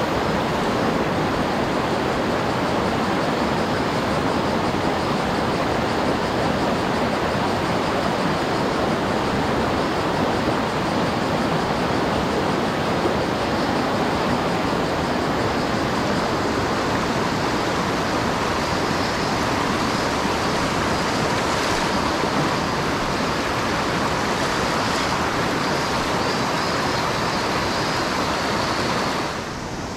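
Rushing mountain stream: a steady, loud wash of running water, dropping a little in level near the end.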